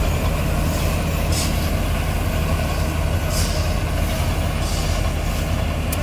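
Heavy diesel farm machinery running steadily in the field: the working Balkar combine harvester and the machine carrying the camera, a constant low engine hum. Short hissing rushes come through every second or two.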